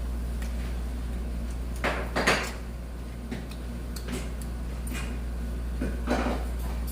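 A few sharp knocks and clatters of dishes and tableware being handled, the loudest a pair about two seconds in, over a steady low hum.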